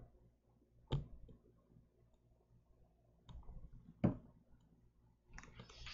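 A few separate sharp clicks and taps over a faint low hum, the loudest about four seconds in.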